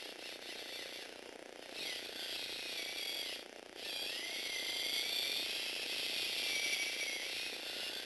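Small electric gearbox motor whining as it drives the plastic gears of a motorised Lego Technic 8294 excavator, with a grinding gear rattle. It starts about two seconds in, stops for a moment, then runs again with its pitch slowly sagging as the upper body swings round.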